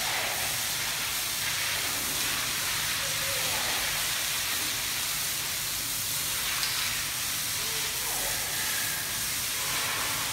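Steady hiss of a garden hose's water jet spraying onto an elephant's wet back and splashing off.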